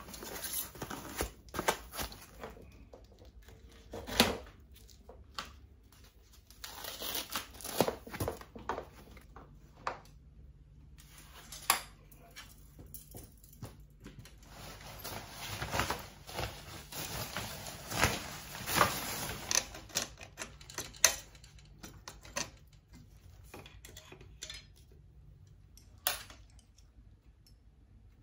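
Hand assembly of a bicycle: irregular clicks, knocks and clatter of metal bike parts being handled and fitted, with stretches of rustling from packing material.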